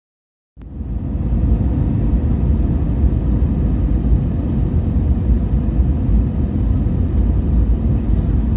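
Steady cabin rumble of an Airbus A320-200 in flight, the engine and airflow noise heard from inside the passenger cabin. It begins abruptly about half a second in.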